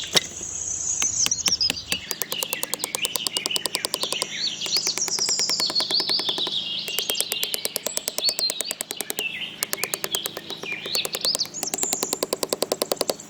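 Songbirds chirping in quick, twisting high notes, over a fast, even ticking.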